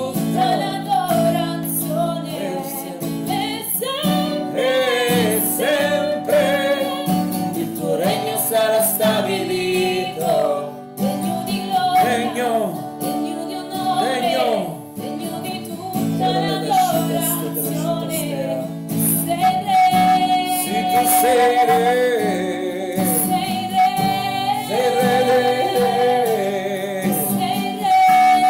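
A woman singing an Italian Christian worship song to acoustic guitar accompaniment, holding one long note about two-thirds of the way through.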